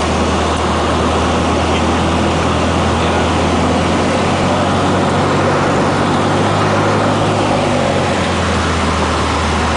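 Cessna 152's four-cylinder Lycoming engine and propeller running at low power, heard from inside the cabin as the plane rolls along the runway after touchdown. It makes a steady low drone under a wash of cabin noise, shifting slightly in pitch about four seconds in.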